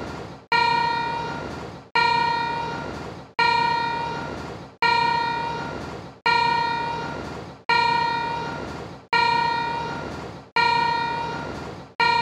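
A ringing tone, struck again about every one and a half seconds: each starts suddenly, fades away and breaks off just before the next.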